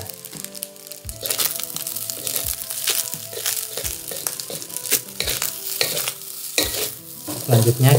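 Fried rice sizzling in a stainless steel wok while a wooden spatula stirs it, with repeated scraping strokes of the spatula against the pan.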